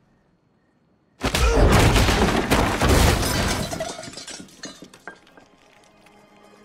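A sudden loud shattering crash, about a second in, with debris clattering and settling over the next few seconds. Quiet sustained music tones come in near the end.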